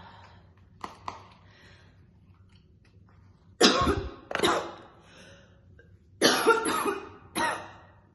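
A woman's heavy smoker's cough while smoking cigarettes: two loud coughs about three and a half seconds in, then a second fit of three coughs near the end.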